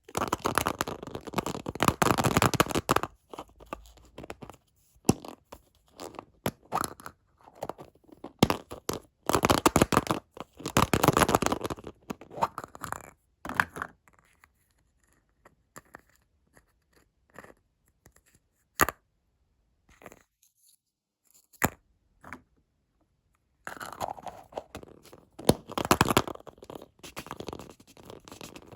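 Candy wrappers crinkling and tearing as sweets are unwrapped by hand, in three long dense bursts of crackling with scattered single crackles and quiet gaps between.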